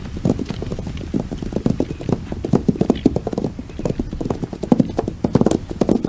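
Horses' hooves pounding on the ground at a run: a fast, irregular patter of hoofbeats that grows louder in the second half.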